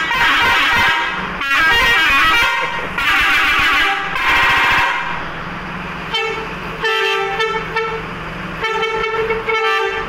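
Intercity bus air horn sounding. It gives four long multi-tone blasts with a warbling pattern over the first five seconds, then several shorter, lower blasts, with the bus's engine running steadily underneath.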